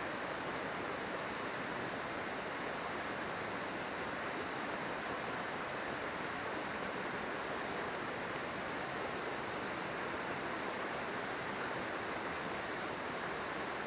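River water rushing steadily, an even unbroken wash of flowing-water noise.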